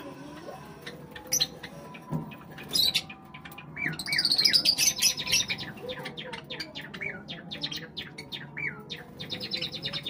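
A flock of Java sparrows chirping with short, repeated calls, with a louder run of rapid chatter around the middle.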